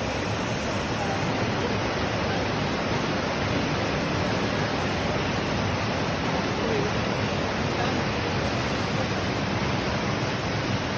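Steady rushing of flowing water, a stream or waterfall, with a few faint short chirps over it.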